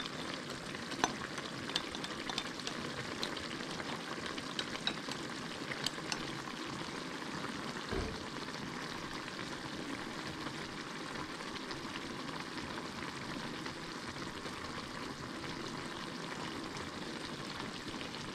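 Shad in its sauce simmering on low heat in a stainless steel frying pan, a steady sizzle. Chopsticks click against the pan a few times during the first six seconds, and there is a dull thump about eight seconds in.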